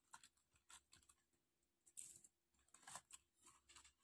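Near silence with a few faint light clicks and rustles as the pieces of a stone-studded metal necklace set are handled.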